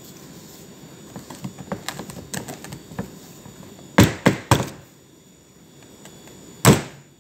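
Light rustling and clicking of tissue worked around inside a metal loaf pan, then sharp knocks of the pan on the counter: three quick ones about four seconds in and one more near the end.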